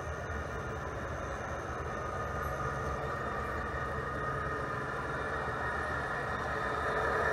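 G scale model coal train hauled by two model diesel locomotives, an Aristocraft CSX Dash 9 and a USA Trains SD40-2, running steadily toward the microphone with a low hum and mechanical whine that grows louder near the end.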